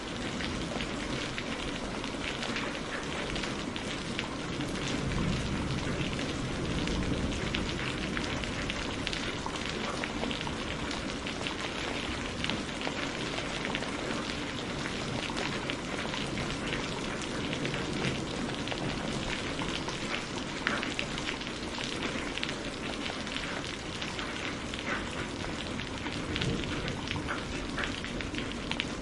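Steady rain falling, a continuous even hiss dense with individual drop ticks.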